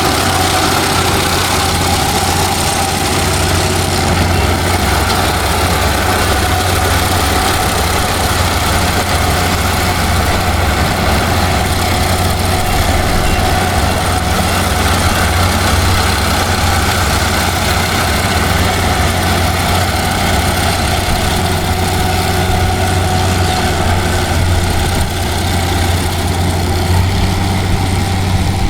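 Kubota PRO588i-G rice combine harvester's diesel engine running steadily under harvesting load, a continuous low drone with no pauses.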